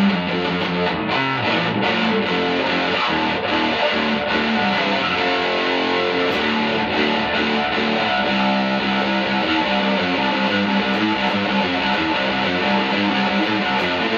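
Aria Pro Explorer electric guitar played through a homemade single-ended tube amp built on 1930s AF7 and AL4 pentodes: a distorted lead line of changing single notes. The builder finds the tone not yet convincing for solos on the low strings.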